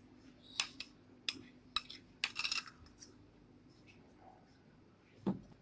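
Spoon clinking and tapping against a bowl and serving dish while scooping and spreading whipped cream: a handful of short, sharp clicks over the first three seconds.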